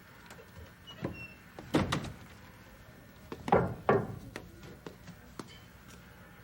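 Knocking on the lid of a metal trash can: a few sharp knocks in two groups, about two seconds apart, with fainter taps around them.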